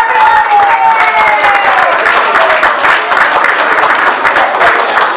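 Audience clapping and cheering. Over the first second and a half, one voice holds a long whoop that slowly falls in pitch.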